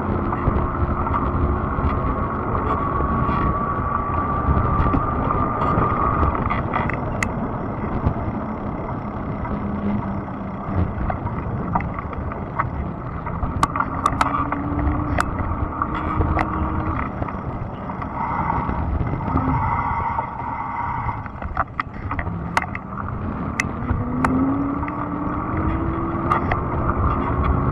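Fat-tire electric bike being ridden: a thin motor whine that slowly rises in pitch, over a steady rushing noise from the tyres and wind, with a few sharp ticks.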